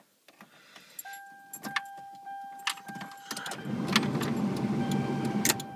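Car keys jangling at the ignition of a 1992 Geo Prizm, with a steady high warning tone coming on about a second in as the ignition is switched on. In the last two seconds a rough rumbling noise starts and then stops abruptly.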